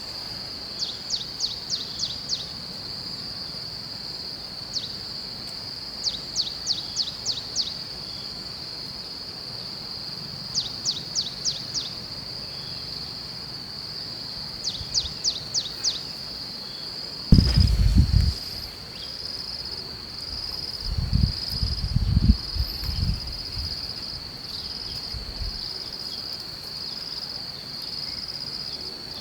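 Insects trilling steadily and high-pitched, with short runs of five or six rapid chirps every few seconds. Past the middle come a few loud, low rumbling thumps, one short one and then a cluster about three seconds later.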